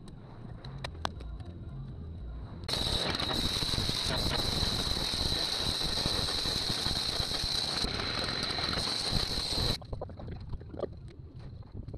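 A few scattered knocks of a shovel working soil, then a gas-powered cut-off saw cutting a concrete sidewalk for about seven seconds: a loud grinding roar with a steady high whine that cuts off abruptly.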